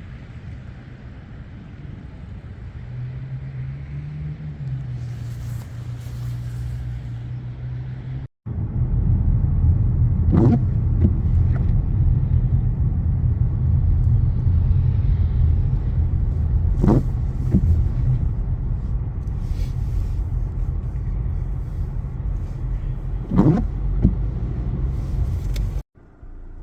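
Steady low rumble of road traffic on a snowy street. It gets louder after a brief dropout about eight seconds in, and a few short sharp sounds stand out above it.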